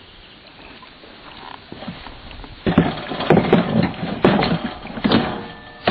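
Irregular clattering and sharp metal knocks that start about two and a half seconds in and last about three seconds: the saw guard being handled and fitted back over the sawmill's blade.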